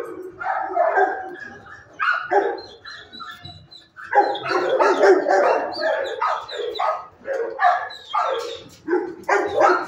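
Shelter dogs barking in a kennel: scattered barks at first, then a dense run of overlapping barks from about four seconds in.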